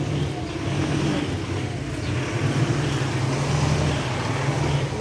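A motor vehicle's engine running steadily, a low even hum that stops near the end.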